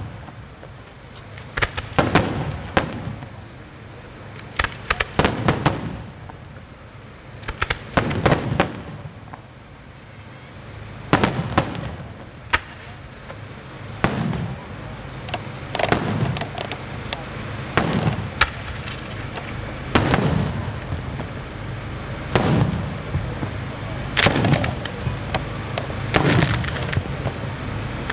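Aerial firework shells from the St. Mary Fireworks Factory of Malta bursting in a display: a run of sharp bangs one to three seconds apart, each followed by a rolling echo.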